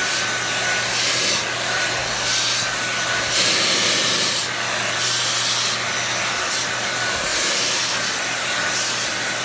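Vacuum cleaner running steadily with a high whine, its brush attachment being stroked over a cat's fur, each stroke a brief rush of scraping, rubbing noise about once a second.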